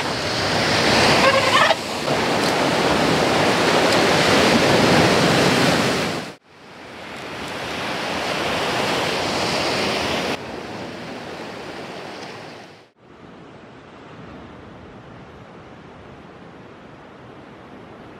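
Ocean surf breaking on a rocky boulder shore: a steady rush of waves and spray. It cuts off abruptly twice and comes back each time, and is quieter over the last five seconds.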